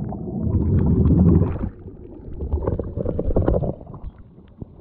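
Water sloshing and gurgling around a submerged action camera, heard as a muffled low rumble that swells twice with faint scattered clicks, growing quieter near the end.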